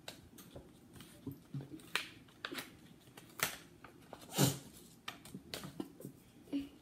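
Paper crackling and rustling in irregular short bursts as an envelope is opened by hand and the paper inside unrolled and unfolded. The loudest crackle comes about four and a half seconds in.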